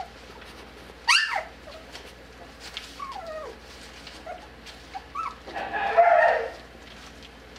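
Young puppies yelping and whimpering at play: a sharp, high yelp that falls steeply in pitch about a second in, then a few short falling whimpers, and a louder, rougher yap about six seconds in.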